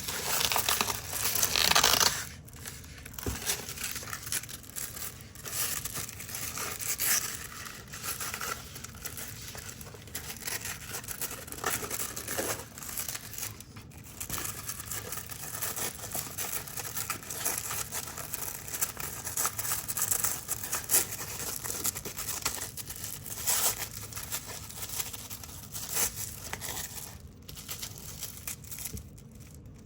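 Velcro hook-and-loop strips being ripped apart: a crunchy, crackling tear, repeated in irregular pulls. The loudest rips come in the first two seconds.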